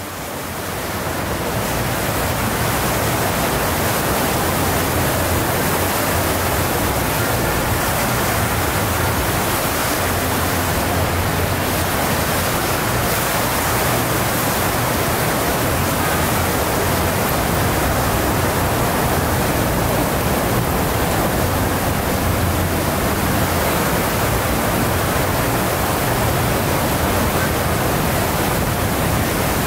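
Steady rushing outdoor noise with a low rumble that swells and fades slightly, rising in over the first second or two.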